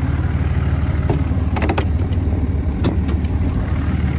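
Diesel engine idling steadily, with a few light knocks and clicks over it.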